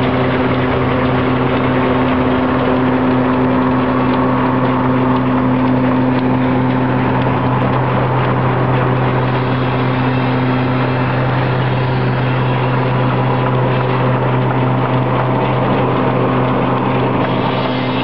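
A Wallis & Steevens steam traction engine driving a Foster threshing machine by belt, the threshing set running at a steady speed. It gives a constant low hum over a busy mechanical rattle.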